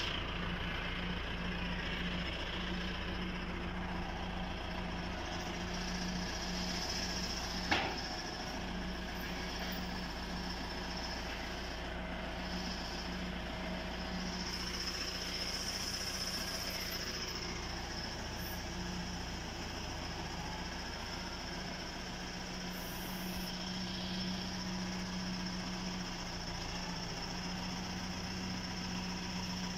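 Farm tractor's diesel engine running steadily at low revs, with one short sharp knock about eight seconds in.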